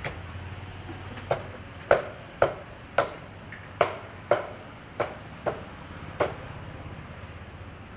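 A series of nine sharp knocks, roughly two a second and unevenly spaced, starting just over a second in and stopping about six seconds in, over a steady low background hum.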